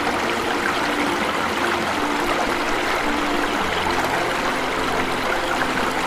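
Waterfall: a steady rush of falling water splashing into a pool, with faint low held tones underneath.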